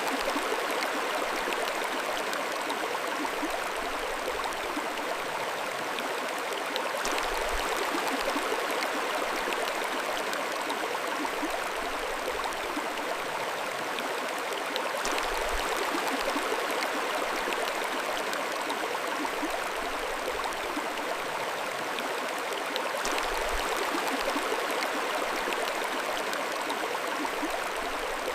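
Mountain stream flowing: a steady, even rush and babble of water with no change in level.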